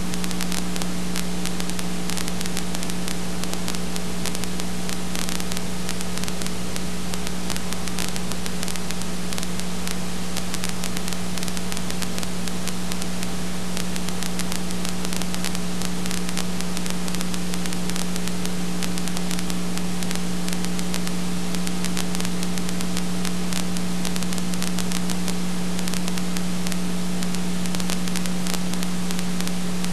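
Steady electrical hum with hiss and fine crackle, unchanging throughout. It is the noise of a silent film transfer with no soundtrack of its own.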